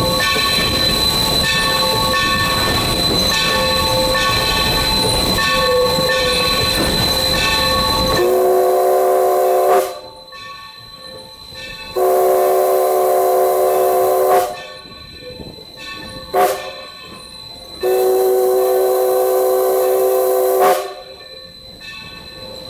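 Steam locomotive 3025 rolling along with a steady high ringing over its running noise, then its chime whistle blowing several notes at once in the grade-crossing signal: two long blasts, one short toot, one long blast.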